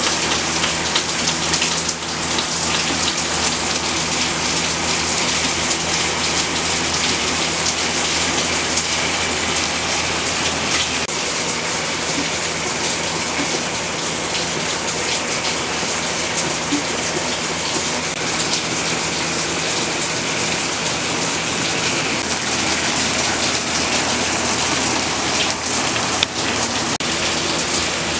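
Heavy rain drumming steadily on a shed roof, heard from inside the shed. A low steady hum underneath drops away about eleven seconds in.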